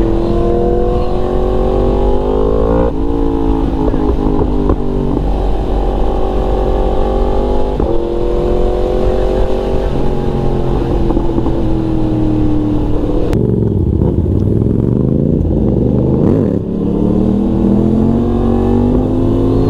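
Yamaha MT-series motorcycle engine pulling hard through the gears, its pitch climbing and then stepping down at each upshift. About two-thirds through, the throttle closes and the revs fall and rise briefly, then the engine pulls away again with rising pitch.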